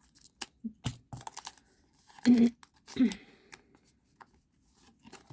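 Foil wrapper of a Pokémon trading card booster pack being torn open and crinkled as the cards are worked out, a string of sharp little crackles and rips. Two short vocal murmurs about two and three seconds in are the loudest sounds.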